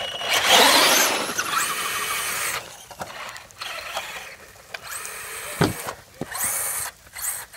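Electric motor of a Traxxas RC truck whining up in throttle bursts, one long burst first and then shorter ones, as the truck drives off.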